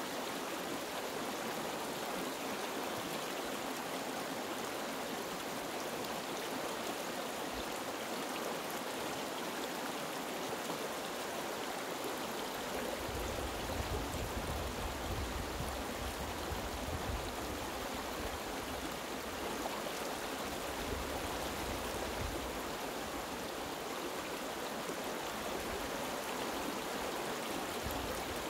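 Small rocky stream rushing over boulders in a shallow riffle: a steady, even wash of running water. A low rumble joins underneath from about halfway through.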